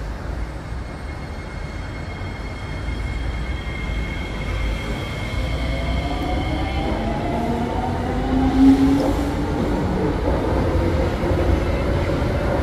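Six-car SMRT metro train running past on the track, growing louder, its motors whining in several gliding tones, with a short louder tone about nine seconds in.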